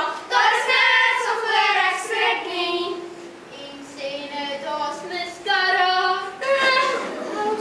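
Children singing together on stage, ending in long held notes.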